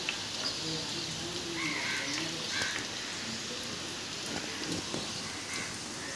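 Steady rain falling on clay-tiled roofs and a wet street, an even hiss, with a few brief faint calls over it in the first half.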